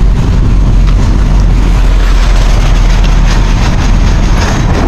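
Loud, steady low rumble with hiss, running evenly with no distinct events.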